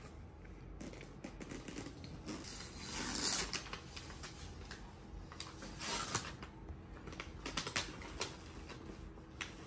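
Light clicks and clatter of utensils and takeout food containers during a meal, louder for a moment about three seconds in and again near six.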